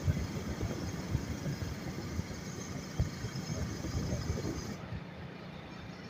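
Vehicle moving along a paved road: a steady rumble of engine and road noise with irregular low thumps.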